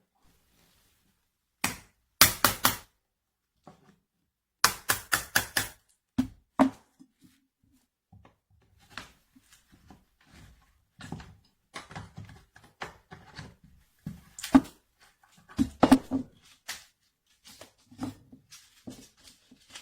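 A series of knocks and thunks: two quick runs of four or five sharp strikes a few seconds in, then scattered lighter taps and knocks. No steady tool motor runs.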